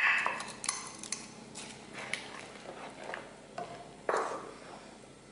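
Wooden spoon stirring flattened rice into boiling milk in a pan: scattered knocks and clicks of the spoon against the pan, with a louder scrape at the start and another about four seconds in.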